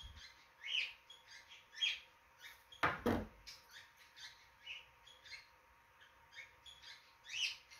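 Small birds chirping in the background, short falling chirps several times a second. A single louder knock comes about three seconds in.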